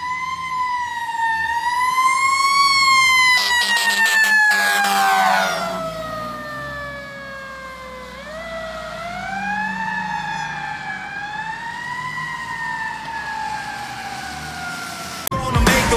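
Ambulance siren on wail, rising and falling slowly as the ambulance approaches, passes and drives away, loudest in the first few seconds and fading after. A harsher horn-like sound joins it for about two seconds as it passes.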